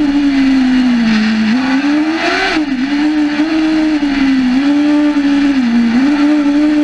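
Camion cross racing truck's engine running hard on a dirt track, heard from inside the cab; the revs dip and climb again several times. A short rushing noise about two seconds in.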